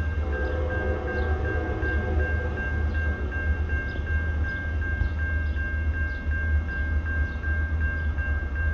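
Norfolk Southern SD60E diesel locomotive approaching at a distance: its bell ringing steadily, about three strokes a second, over a low rumble, with a horn note sounding briefly at the start.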